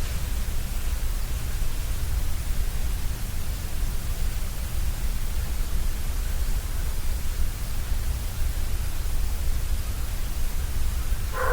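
Steady background noise from an outdoor recording: an even hiss over a heavy low rumble, with no distinct call or event.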